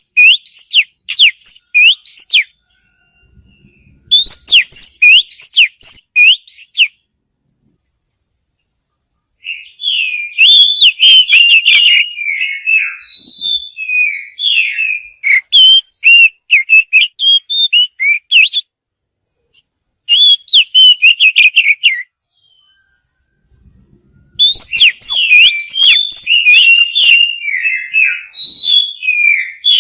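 Oriental magpie-robin singing: bouts of rapid, varied whistled phrases broken by pauses of a couple of seconds. It is the song used to rouse rival males and call in females.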